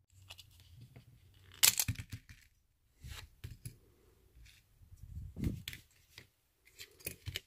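A Hot Wheels die-cast truck being taken apart by hand, its plastic interior, base and window pieces clicking free and being set down on a hard tabletop: irregular clicks and light knocks, the loudest about one and a half seconds in.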